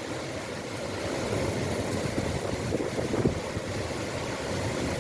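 Heavy rain falling steadily, with wind rumbling on the microphone and a few louder knocks about three seconds in.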